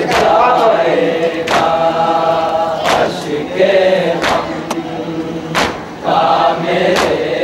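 Men's voices chanting a noha, a Shia lament, together, with sharp slaps in unison about every one and a half seconds: the beat of matam, hands striking the chest in time with the lament.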